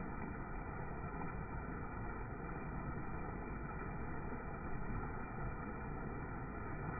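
Muddy flood water rushing steadily over a small rock ledge in a swollen creek and churning into the pool below.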